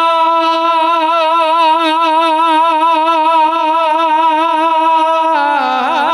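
A singer holds one long note with steady vibrato in a devotional naat, then slides down to a lower note near the end.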